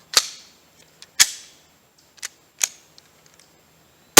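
A few sharp clicks from the pistol being handled, about a second apart, then right at the end a full-power shot from a Glock 41 firing a .45 ACP handload, 230 grain full metal jacket over 7 grains of Power Pistol, with a long echoing tail.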